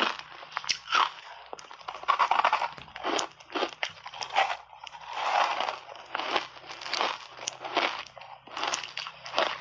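Ice chunks coated in matcha tea powder being bitten and chewed up close: an irregular string of sharp, loud crunches and cracks, with short stretches of grinding as the ice is chewed.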